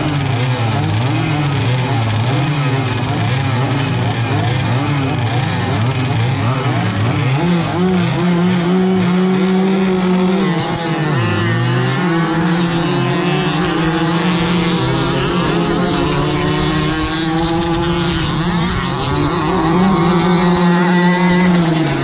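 Small two-stroke moped engines running and revving, several at once, their pitch rising and falling. Near the end one is revved up and held at high revs.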